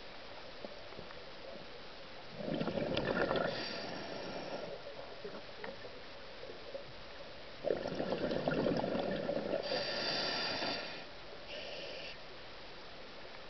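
Scuba diver breathing through a regulator underwater: two breaths, each a rush of exhaled bubbles followed by a higher hiss, the first about two seconds in and the second about eight seconds in.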